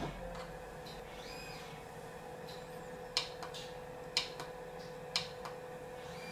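Fastech Ezi-SPEED brushless DC motor starting up and running at a steady speed with a steady tone and a low hum. Three sharp clicks about a second apart in the second half, from the speed controller's keypad buttons being pressed.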